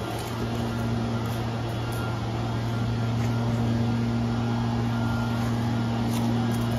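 Steady low mechanical hum with a fainter steady higher tone over it, like a motor running without change.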